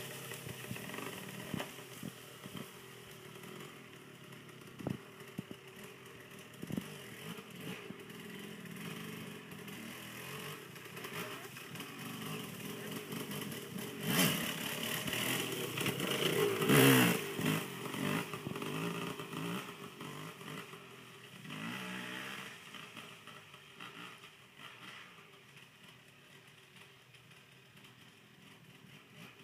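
KTM dirt bike engine running and revving, rising and falling in pitch. It is loudest about halfway through with a hard burst of revs, revs again a little later, then fades as the bike rides off into the distance.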